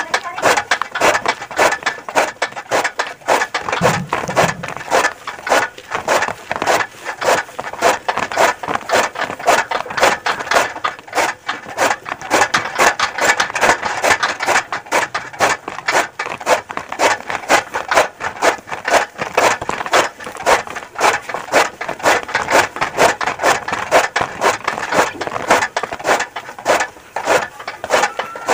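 Hand-cranked chaff cutter chopping green fodder: the blades on its flywheel slice the fed bundle in a fast, even rhythm of chopping strokes that runs without a break.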